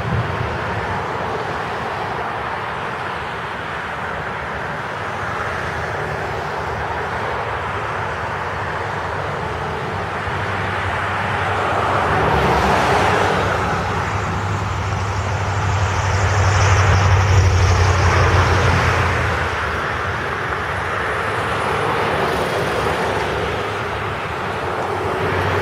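Thunderstorm: a steady wash of rain noise with low rolling thunder that swells about halfway through and builds to its loudest a little after.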